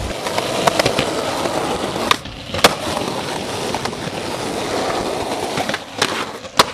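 Skateboard wheels rolling on pavement, broken by sharp clacks of the board striking the ground. The loudest clack comes a little under three seconds in, and two more come near the end.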